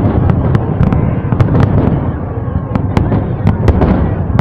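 Fireworks display: a continuous low rumble of bursts with many sharp, irregular crackling pops over it.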